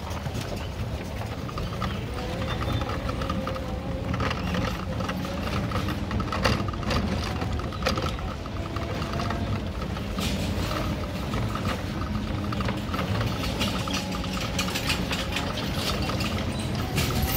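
Street ambience: a steady hum of traffic with a faint wavering tone, and scattered short clicks and crunches throughout, in keeping with footsteps on a dirt and gravel roadside.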